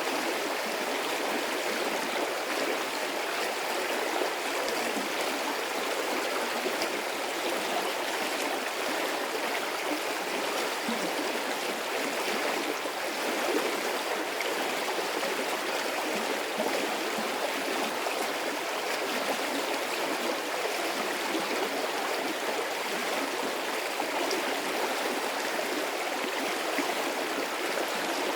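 Medium-sized stream of water running steadily, a continuous rushing and gurgling flow with no breaks.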